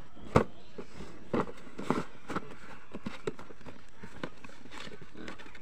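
Cardboard shipping box being handled: a sharp knock about half a second in, then scattered lighter taps and knocks of cardboard that thin out toward the end.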